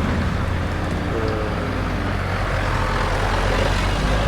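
Several motorcycles pulling away together, their engines making a steady low rumble.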